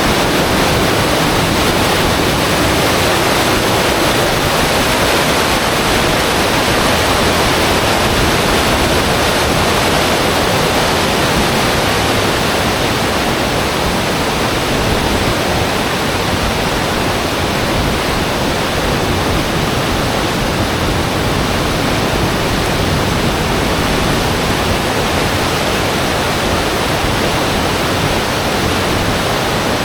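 Loud, steady rush of turbulent whitewater from a swollen, muddy river.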